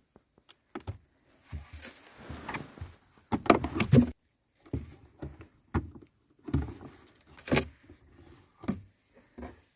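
Objects being handled: a run of irregular clicks, knocks and rustles, loudest about three and a half to four seconds in and again briefly a little after seven seconds.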